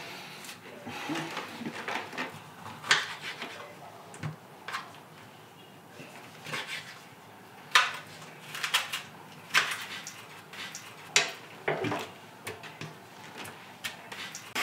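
A kitchen knife cutting fruit on a wooden cutting board, with irregular knocks and clinks of the blade and kitchen utensils.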